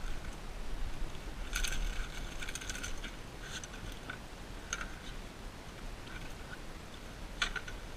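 Small metallic clicks and rattles from unhooking a caught snapper with pliers in a boat: a cluster of rattling about one and a half to three seconds in, then a few single clicks.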